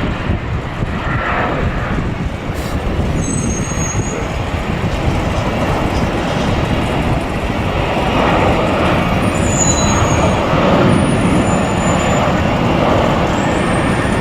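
Jet airliner engines, a loud steady noise that grows louder about eight seconds in.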